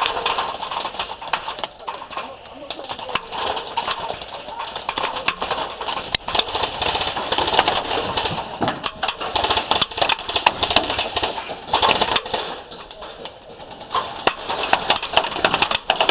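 Airsoft guns firing full-auto in repeated bursts of rapid clicks, with rustling between them.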